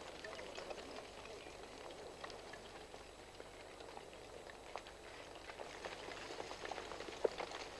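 Advancing Etna block-lava (aa) flow crackling and clinking: a steady patter of many small sharp clicks as the crusted blocks shift, with one louder click near the end.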